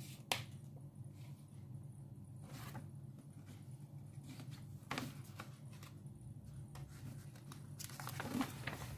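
Glossy paper catalogue rustling and crinkling as it is handled and smoothed flat: a few soft, scattered rustles, with a longer crinkling stretch near the end, over a faint steady low hum.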